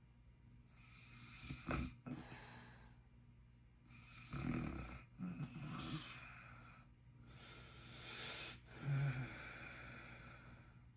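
A man snoring in his sleep: three breaths about three seconds apart, each a low buzz with an airy hiss.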